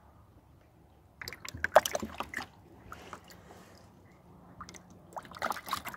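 Water splashing and sloshing in a shallow plastic tub holding a koi, in two clusters of quick splashes: one starting about a second in, another near the end.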